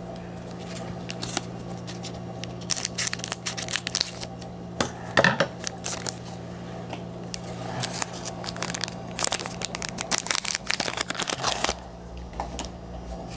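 A football trading-card pack wrapper being torn open and crinkled by hand, a dense run of irregular crackles, over a steady low hum.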